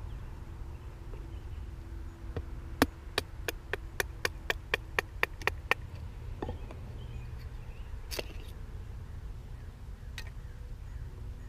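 Batoning dry, seasoned birch with a CPM3V knife: a baton strikes the knife's spine in a quick run of about ten sharp knocks, roughly three a second, driving the blade down through the stick. A few single knocks follow as the split pieces come apart.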